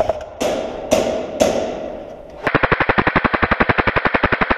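Airsoft gun firing: a few single shots, each a sharp crack with room echo, then about halfway through a long, rapid full-auto burst.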